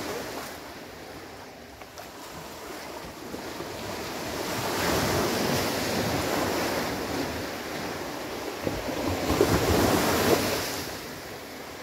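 Sea waves breaking on a sandy beach. The surf swells and washes in twice, the second crash near the end louder, with splashing.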